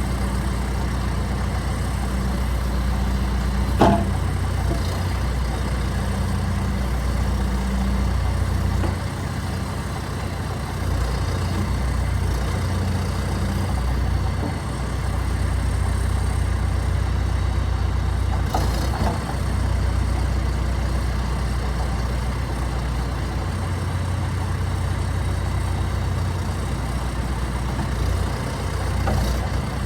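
John Deere 310SL backhoe's 101 hp turbo diesel engine running steadily. A sharp clack comes about four seconds in, with fainter knocks later on.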